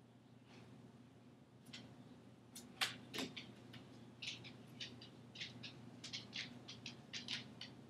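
A dog getting down from the kitchen counter: a sharp knock about three seconds in, then a run of quick, light clicks and ticks as it moves about on the floor.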